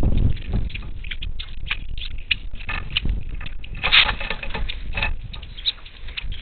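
Monk parakeets at a feeder: a rapid, irregular run of short clicks and scratchy chatter, busiest about four seconds in, over a low rumble of wind on the microphone.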